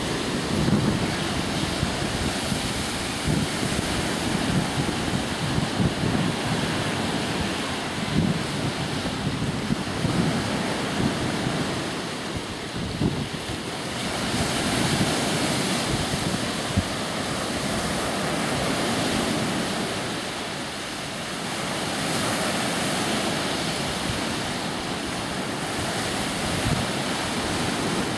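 Small lake waves breaking and washing onto the beach, with wind buffeting the microphone. The wash swells louder and eases off a few times.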